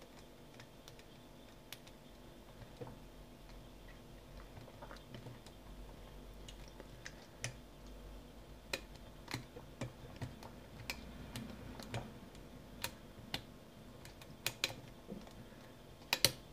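Faint, irregular metallic clicks of a hook pick probing the pins of a Burg Wächter Alpha Titan 900 padlock's profile cylinder under top-of-keyway tension, the clicks coming more often in the second half.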